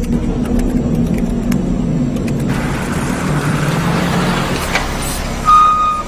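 Motor vehicle engines running, their low pitch shifting up and down, joined about halfway through by a rushing noise. A short, high, steady beep sounds near the end.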